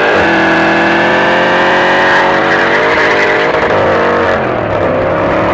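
2015 Dodge Challenger SRT Hellcat's supercharged 6.2-litre Hemi V8 held at high revs during a smoky burnout, rising slightly at first; the revs drop off about four seconds in.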